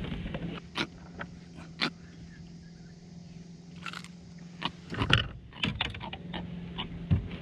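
Irregular clicks and knocks of fishing gear being handled on a kayak with a trevally just landed, sharpest about five seconds in and near the end, over a steady low hum.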